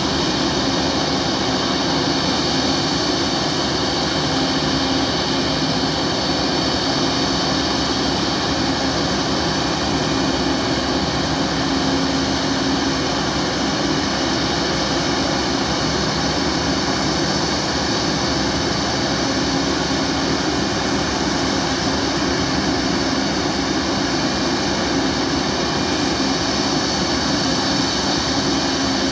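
Boeing 737 MAX 8's CFM LEAP-1B turbofan engines running steadily at ground idle: a constant rushing noise with a high whine and a low hum that neither rise nor fall.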